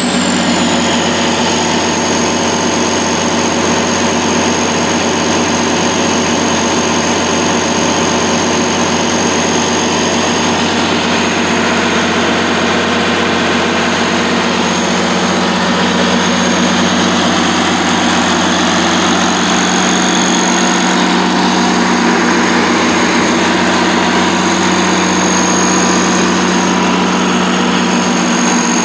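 Kohler 100 kW diesel generator running steadily just after starting, with no muffler fitted, its engine note even and unbroken under a steady high whine.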